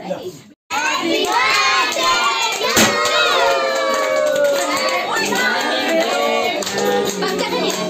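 A handheld party popper goes off with one sharp bang about three seconds in, amid a group of adults and children shouting, singing and clapping. The sound drops out for a moment near the start.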